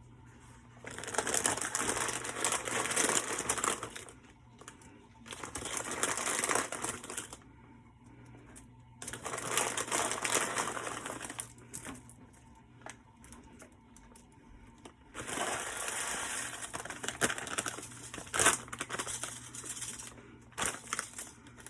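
Plastic shrimp noodle packets crinkling as they are handled and opened, in four bursts of a couple of seconds each, with a few sharp clicks near the end.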